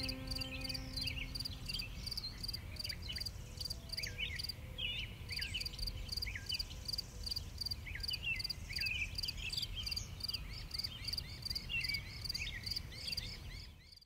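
Crickets chirping in an even pulse, about four chirps a second, with short gliding chirps from other small creatures over them. The tail of a music chord fades out in the first two seconds, and the sound cuts off at the very end.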